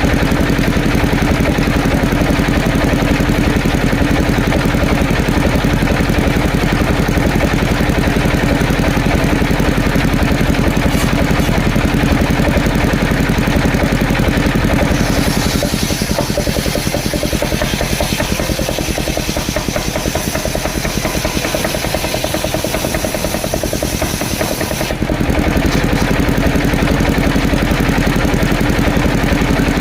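The engine of a mobile circular-saw sawmill runs steadily, with the saw running on it. For about ten seconds from roughly halfway through, the note changes and dips slightly as the blade works through a coconut-wood log, then it returns to its free-running sound.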